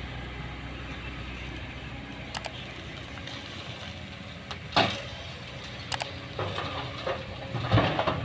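Diesel engines of a hydraulic excavator and a six-wheel dump truck running steadily, with a few sharp knocks and clanks. The loudest knock comes about five seconds in, and more follow near the end.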